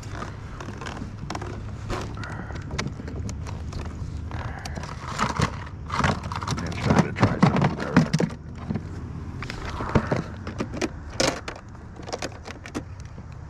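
Plastic tackle box and lure trays being rummaged through: irregular clicks, knocks and rattles of plastic and lures, busiest in the middle of the stretch and again shortly after.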